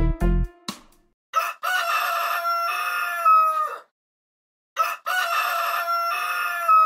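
A rooster crows twice, each cock-a-doodle-doo lasting about two and a half seconds and ending in a falling note. A short musical jingle ends just before the first crow.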